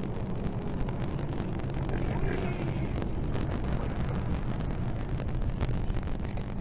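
Steady road and engine noise inside a car cruising at about 100 km/h, picked up by a dashcam in the cabin.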